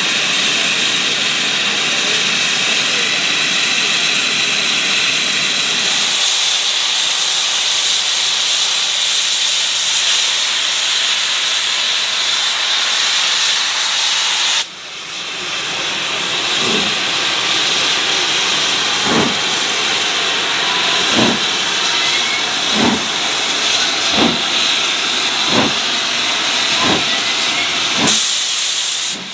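GWR Castle-class 4-6-0 steam locomotive Clun Castle blowing off steam in a loud, steady hiss. About halfway the sound cuts, and the hiss of escaping steam goes on under a slow beat of exhaust chuffs that gradually quickens as the engine starts away.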